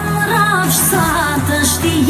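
A woman singing a wavering, ornamented melody over loud amplified backing music with a steady bass line and cymbal strokes, heard through a PA system.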